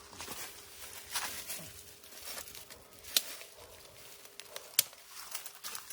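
Scattered rustling and crinkling, with two sharp clicks about three seconds and nearly five seconds in.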